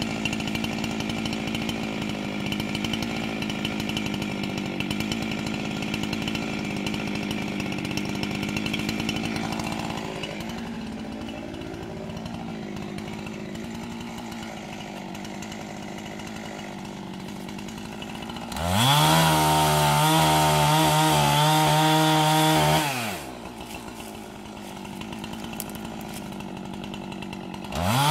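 Chainsaw idling, then opened up to full throttle with a rising whine about two-thirds of the way in. It cuts into a large tree trunk for about four seconds and drops back to idle. It is revved up again right at the end.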